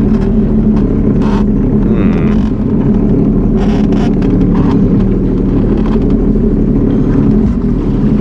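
Sea-Doo personal watercraft engine running steadily at low speed in shallow water, with two brief hisses over it.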